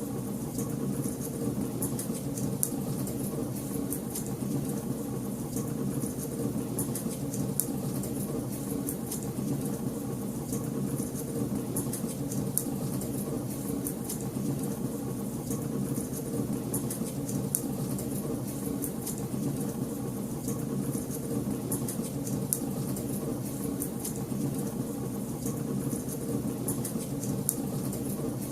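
Wood fire burning in a fireplace, crackling with frequent small pops and snaps over a steady low rumble.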